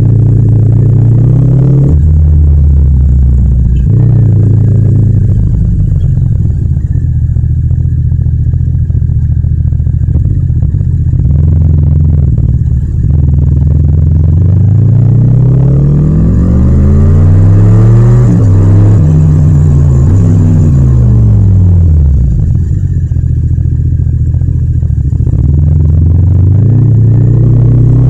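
Yamaha MT-07's 689 cc parallel-twin engine running as the bike is ridden, its note mostly held steady at cruising revs. About halfway through, the revs climb and fall several times, and they rise again near the end.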